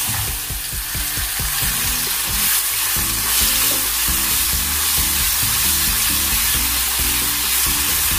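Pounded garlic-and-shallot spice paste frying steadily in a little vegetable oil in a non-stick wok, sizzling as a silicone spatula stirs it around the pan.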